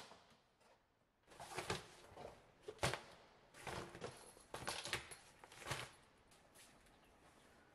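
Handling noise from loading a collapsible plastic crate on a hand cart: a sharp click at the start, then irregular rustling and knocks as fabric bags and a camping bag are stuffed in, fading near the end.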